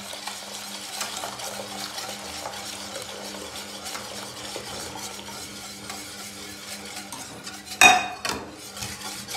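A wire whisk swishes steadily in a steel pot of milk as hot boiled milk is poured in, mixing milk, sugar and yogurt for homemade set yogurt (raib). Near the end a saucepan is set down on the stone counter with a single sharp clank.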